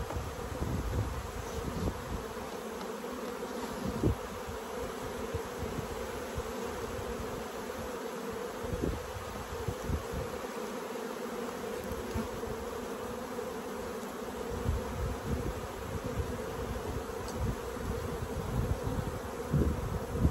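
Honeybees buzzing steadily around an open hive box. A couple of short knocks from a metal hive tool working the frames.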